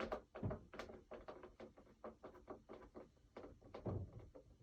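Hand screwdriver backing long screws out of an animatronic's frame: a run of small, irregular clicks several times a second, with two dull bumps, one about half a second in and one near the end.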